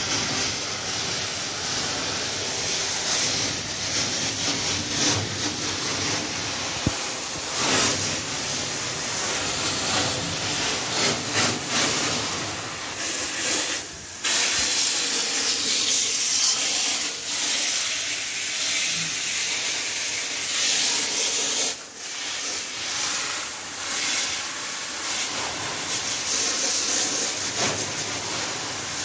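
High-pressure water spraying from a washer lance, a steady hiss as the jet hits the ceiling and feeder lines while an emptied broiler house is washed out. The spray cuts out briefly twice.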